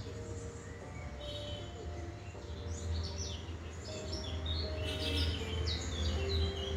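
Small birds chirping: a busy run of short, high chirps, many of them falling in pitch, thickening in the second half. A steady low hum runs underneath.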